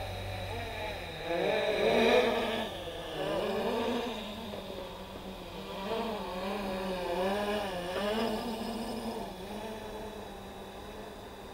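Small electric RC motors whining, the pitch rising and falling again and again with the throttle, loudest about two seconds in.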